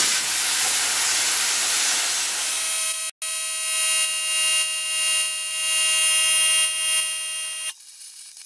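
Plasma cutter cutting sheet steel: a loud rush of air for about three seconds, then, after a split-second break, a steady whine over the hiss that cuts off sharply near the end.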